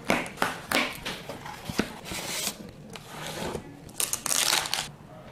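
A cardboard shipping box being cut open with a knife and its flaps pulled apart: an irregular run of scraping, tearing and rustling of cardboard and packing tape with a few sharp clicks, the longest rustle about four seconds in.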